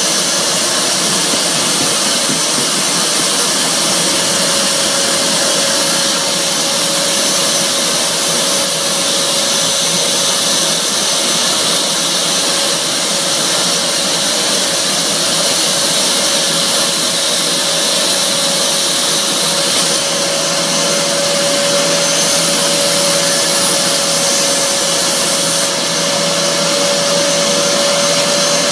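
Vacuum cleaner running steadily, sucking the air out of a vacuum storage bag packed with a duvet. The bag shrinks flat, and the motor's hum creeps slightly higher in pitch.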